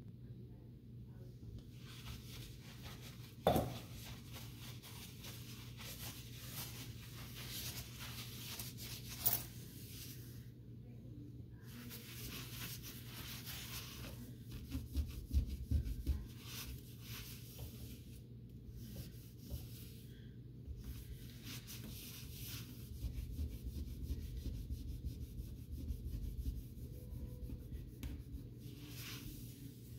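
A cloth rubbing and wiping across a smooth glass-ceramic cooktop in repeated strokes with short pauses. A sharp knock sounds about three and a half seconds in and again about nine seconds in, with a few low thuds around the middle.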